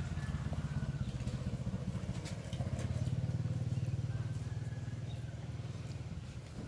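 An engine running steadily with a low, rapidly pulsing hum, growing fainter over the last couple of seconds.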